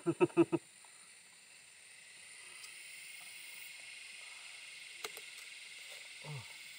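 Insects droning steadily in the surrounding forest, a faint even buzzing that swells slightly a couple of seconds in. There are a few light clicks about five seconds in and a brief murmur of voice at the very start.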